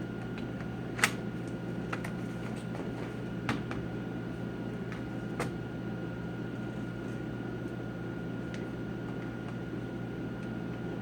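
A few sharp plastic clicks and knocks, the loudest about a second in, as the laptop battery is slid and snapped back into its bay, over a steady low hum.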